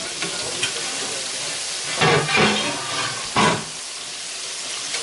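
Chicken thighs frying in oil in a cast-iron skillet: a steady sizzle, with two louder bursts about two and three and a half seconds in.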